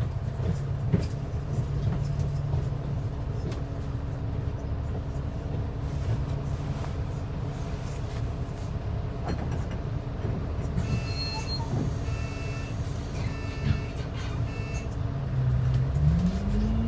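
Transit bus engine heard from inside the bus, running with a steady low hum, then revving up with a rising pitch near the end as the bus accelerates. A run of four short beeps sounds in the second half.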